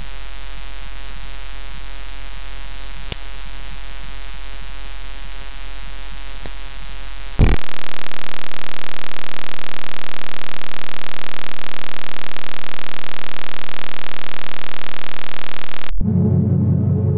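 Electronic music: a steady, buzzy synthesizer drone, which about seven and a half seconds in jumps to a much louder wall of static-like noise. The noise cuts off suddenly about sixteen seconds in, and lower synth tones carry on.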